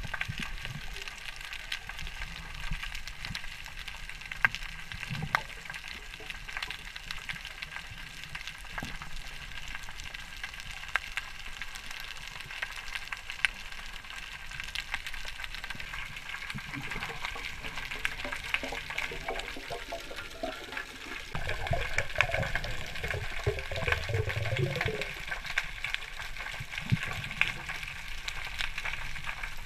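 Underwater ambience picked up through a waterproof camera housing: a steady hiss with scattered sharp clicks and crackles. A louder low rumble comes in about two-thirds of the way through and lasts a few seconds.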